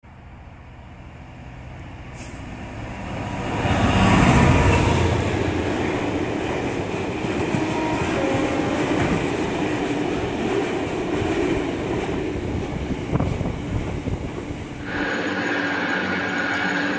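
A diesel freight locomotive approaches and passes close, loudest about four seconds in. A long train of hopper wagons follows, rolling by with a steady rumble and clatter of wheels on rail. About fifteen seconds in this cuts suddenly to a steady hum with a held higher whine.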